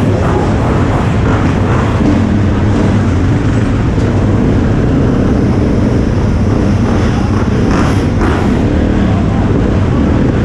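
Motocross bike engine running steadily at low revs, heard up close from the rider's own bike, with other dirt bikes idling and rolling nearby.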